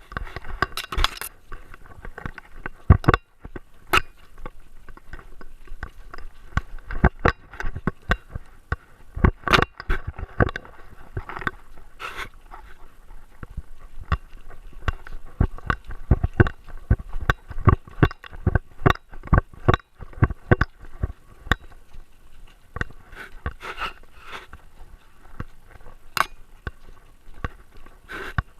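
Rapid, irregular clicks, crunches and scrapes right at a camera worn by a Great Dane, made by the dog's own movement and handling of things close to the mount.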